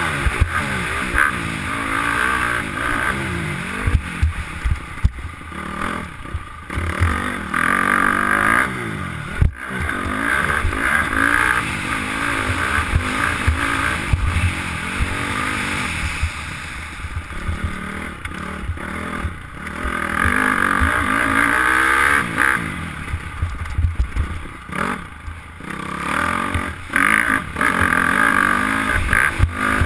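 2008 Honda CRF250R's single-cylinder four-stroke engine ridden hard on a dirt motocross track, its revs climbing and falling again and again as the rider shifts and rolls off. Low buffeting runs under it, and there is one sharp knock about nine and a half seconds in.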